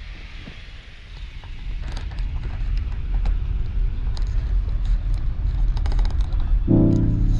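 Road and engine noise heard inside a moving car: a low rumble that grows louder over the first few seconds, with scattered light creaks and clicks. Music starts near the end.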